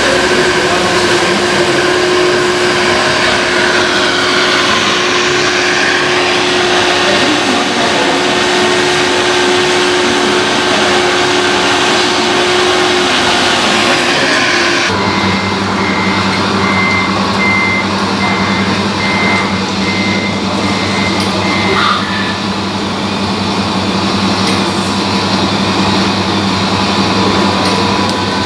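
Radio-controlled model trucks running with a steady, engine-like hum. About halfway through the sound changes abruptly, and a reversing beeper sounds regularly for about six seconds.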